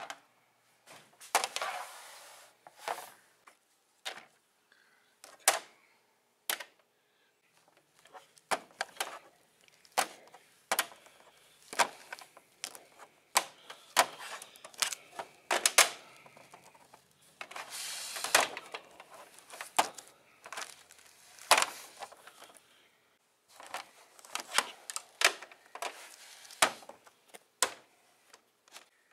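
Plastic action figures knocked together and against a plastic toy playset by hand: irregular clicks, clacks and taps, some in quick clusters, with handling rustle in between.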